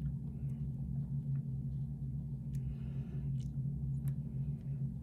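Faint sharp clicks and short scratchy scrapes of a lock pick probing the pins inside a lock under tension, over a steady low hum.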